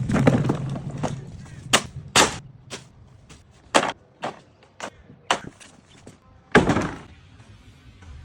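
A series of sharp knocks at uneven intervals, about eight in all, two of the loudest coming around two seconds in and another late on. A low hum runs under the first second.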